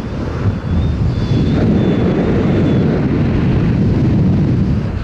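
Wind rushing over the skydiver's camera microphone in freefall: a loud, steady, low rushing noise.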